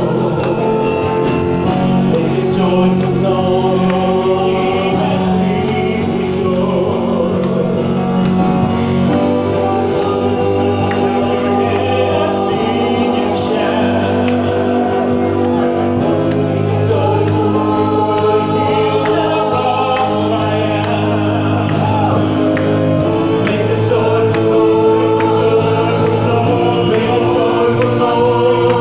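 Samoan church choir singing a hymn in several-part harmony, many voices holding long notes together.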